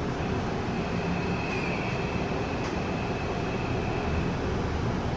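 Busan Metro 1000-series subway car with Toshiba PMSM drive, running between stations and heard from inside the car: a steady rumble of wheels and running gear. A thin high whine sets in just after the start and fades about a second before the end.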